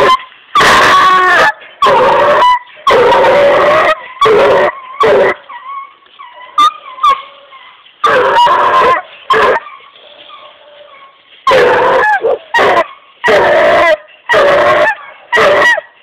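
Seven-month-old hound baying up a tree: a run of loud, drawn-out bawls, then several seconds of quieter yips and whines, then loud bawls again near the end. This is a young dog treeing its quarry.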